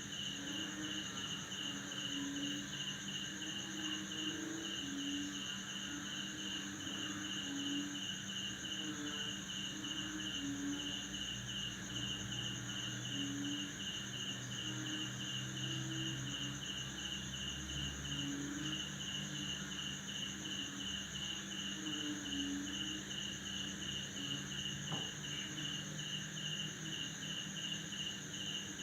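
A chorus of crickets chirping without a break: one high continuous trill, and another chirping in a steady pulse about twice a second. Underneath, frogs croak in short, irregular low calls.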